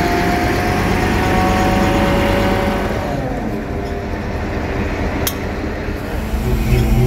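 Kato 25-ton truck crane's diesel engine running with a steady hydraulic whine. About three seconds in the sound changes to a lower hum, with a single sharp click about five seconds in and a deeper, louder engine note near the end.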